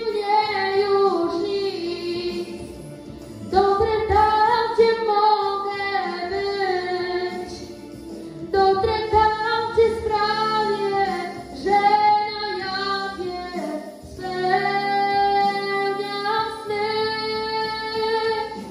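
A boy singing a Polish pop song into a handheld microphone, in phrases of long held notes.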